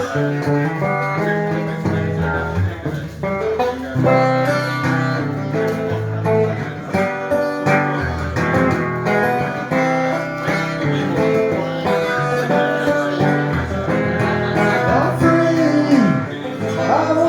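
Guitar-led instrumental passage of a song played live, with plucked and strummed guitar chords throughout and two swooping pitch slides near the end.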